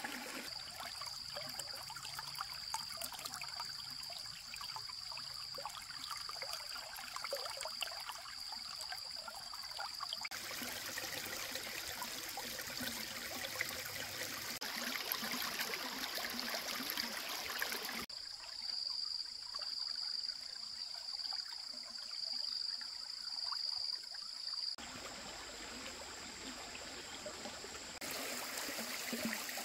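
Water flowing and trickling, with the sound changing abruptly several times. A high, steady pulsing tone runs over the water for the first third and again about two thirds through.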